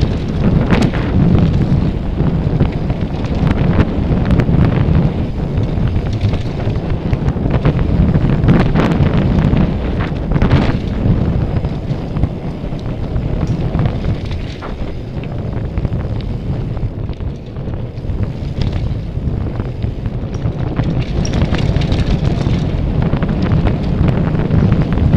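Wind buffeting an action camera's microphone during a fast downhill mountain-bike descent, with frequent sharp clicks and knocks from the bike rattling over rough, rocky trail.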